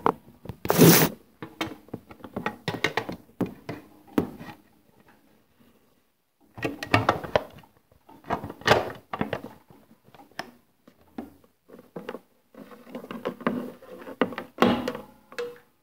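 Knocks and clicks of a hard plastic extension table being handled and fitted onto the free arm of a Bernina 530 Record sewing machine, with one loud thunk about a second in. Near the end, the clatter of the foot pedal and its cords being picked up.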